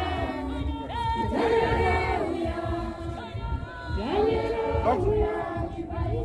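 A congregation of mixed voices singing a hymn together, rising into long held notes in phrases a second or two long.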